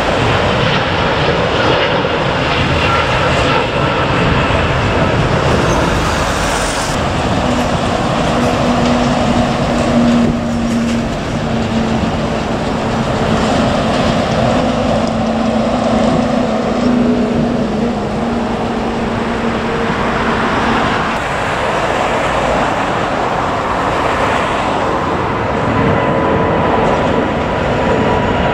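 Jet engines of a Boeing 787-9 (Rolls-Royce Trent 1000 turbofans) climbing out after takeoff: a steady, loud roar, with a low hum running through it for several seconds in the middle.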